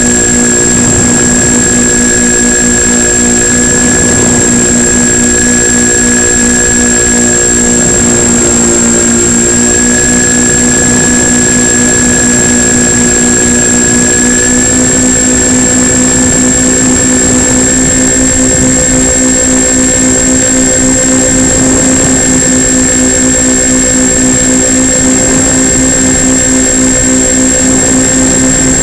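Twin electric motors and propellers of a Multiplex Twinstar 2 model plane droning steadily in flight, heard from on board the plane. The pitch steps up slightly about halfway through, and a steady high-pitched whine sits above the drone throughout.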